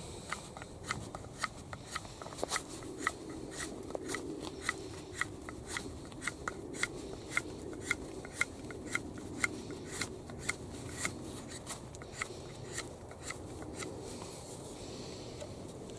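Hand tool working wood, with a steady rhythm of sharp clicks about twice a second that stop near the end.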